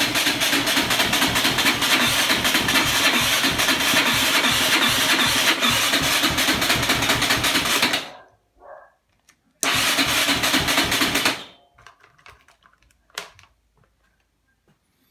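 Yamaha Raptor 660's single-cylinder engine being cranked on the electric starter without catching: an even, pulsing crank for about eight seconds, then a second, shorter crank of about two seconds, then a single click. It is a no-start even though the engine has spark and fuel.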